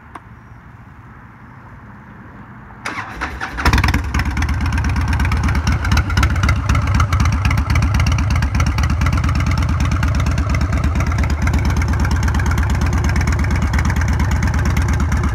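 2008 Harley-Davidson Heritage Softail Deluxe's Twin Cam 96 V-twin being started. The electric starter cranks briefly about three seconds in, then the engine catches with a short burst and settles into a steady, rhythmic idle.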